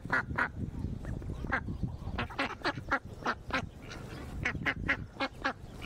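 Several domestic ducks quacking: short, harsh calls coming irregularly, often two or three in quick succession, over a steady low rumble.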